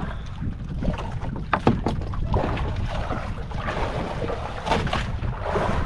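Water splashing and sloshing beside a small fishing boat as the net is hauled in, over a steady low rumble. There are a few sharp knocks, and the splashing is strongest about two and a half seconds in and again near the end.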